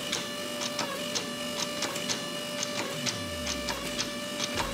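Hydraulic forging press running with a steady whine and light ticking as hot Damascus steel is drawn down to a square. A low tone sags in pitch about three seconds in.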